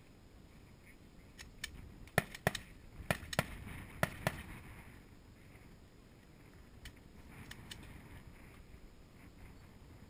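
Distant pistol shots from another stage, fired in quick pairs: four pairs in a row, then a few fainter single shots.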